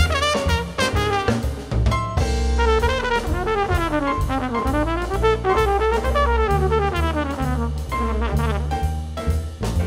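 Live jazz combo: a trumpet plays fast runs of notes that sweep up and down, over upright bass and a drum kit with cymbals.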